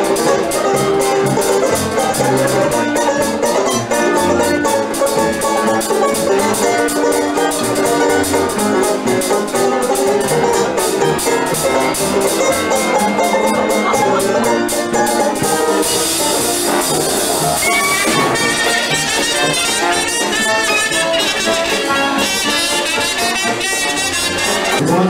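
Live traditional jazz band playing: banjo, drum kit and brass together in a steady ensemble. About two-thirds of the way through it turns brighter and hissier, and a wavering lead line comes forward near the end.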